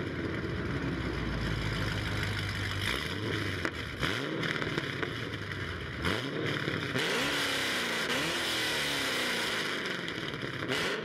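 Car engine exhaust idling with a steady low rumble, then revved: the pitch climbs and drops about four seconds in and again about six seconds in, followed by slower falls in revs near the end.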